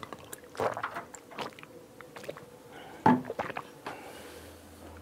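Water sloshing in a plastic bottle with swallows as a man drinks from it, then a sharper knock about three seconds in, the loudest sound.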